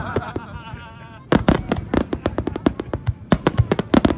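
Aerial fireworks bursting in a rapid barrage: a string of sharp bangs and cracks that thickens after a short lull about a second and a half in.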